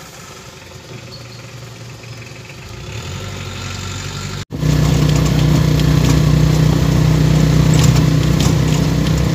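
Vehicle engine running, heard from inside the passenger cab, growing slowly louder. After an abrupt break about four and a half seconds in, it is much louder, a steady drone with a strong low hum.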